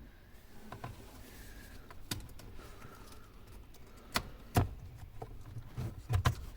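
Irregular sharp clicks and light knocks from a car key and ignition switch being worked, loudest about four and a half seconds in, with a quick pair near the end.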